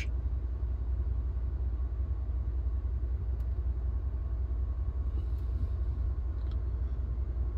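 Steady low rumble of a 2022 Chevrolet Silverado HD pickup idling, heard inside the cab.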